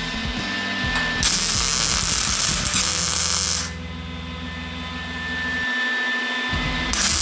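Wire-feed welder laying stitch welds on steel sheet metal: the arc crackles and hisses in a burst from about a second in until nearly four seconds, stops, and strikes up again near the end.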